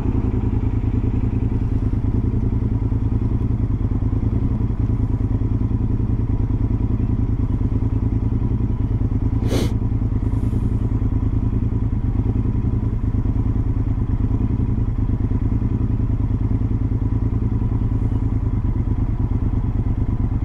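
Motorcycle engine idling steadily while stopped in traffic, with one short sharp click about halfway through.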